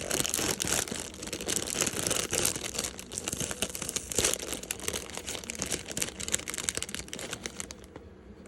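Packaging crinkling and rustling by hand as a doll dress is pulled out of it, in a dense irregular crackle that dies down shortly before the end.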